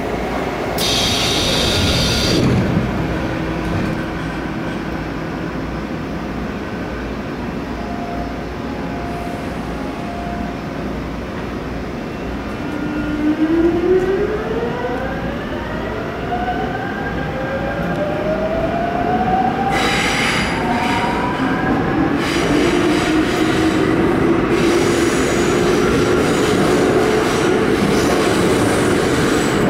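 Seoul Subway Line 5 train heard from inside the car, pulling away and picking up speed: the traction motors' electric whine rises in pitch over several seconds, over steady wheel and rail running noise that grows louder. A short hiss comes about a second in.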